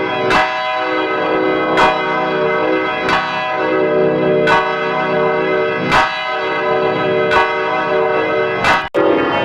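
Church bells ringing: a new bell strike about every second and a half over a continuous wash of overlapping, lingering bell tones. Near the end the ringing cuts out abruptly for an instant and a different bell recording starts.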